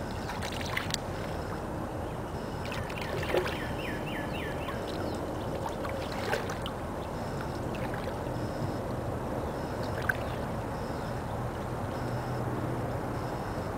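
Water sloshing and swirling around a person's legs as he wades slowly through a shallow, cold swamp. A few sharp clicks and knocks, and a quick series of short falling chirps about three to five seconds in.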